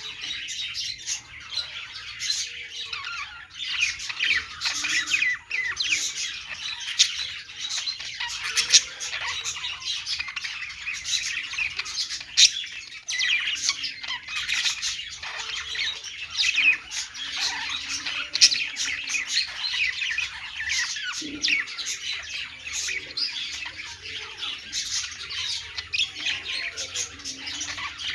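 Budgerigars chattering and chirping: a constant, dense stream of short, high calls, with louder sharp notes standing out here and there.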